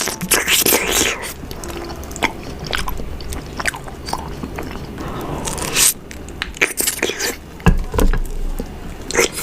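A person biting and chewing honeycomb close to the microphone: crunchy crackles in irregular bursts, loudest about half a second in, around six seconds and near eight seconds.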